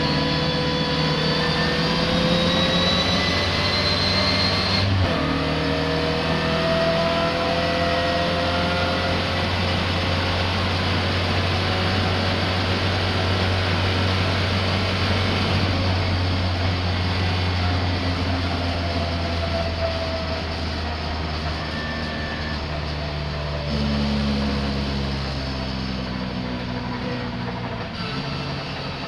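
Racing car engine at speed, pitch rising as it accelerates, with a gear change about five seconds in before it climbs again, then running steadily and easing off in the last few seconds. The uploader calls this car's engine misfiring.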